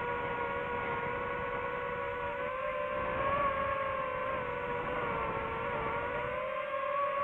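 DJI FPV drone's motors and propellers whining in flight, a steady multi-tone hum. The pitch wavers with throttle, sagging a little about five to six seconds in, then rising again.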